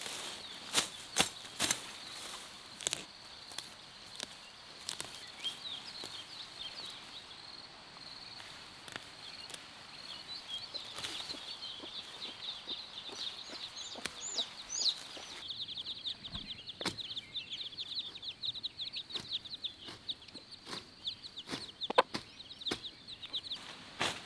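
A long blade chopping through weeds and grass in sharp, irregular strokes, over a steady high chirping that turns into a dense rapid trill about two-thirds of the way in.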